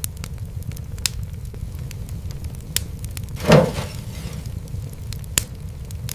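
Wood fire crackling: scattered sharp pops and snaps over a steady low rumble, with one louder pop and a brief hiss about halfway through.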